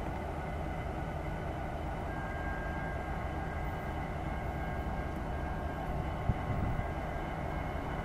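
Three EMD SD70M diesel-electric locomotives running steadily as they approach at the head of a freight train: a low, even engine rumble with a faint thin high tone from about two seconds in.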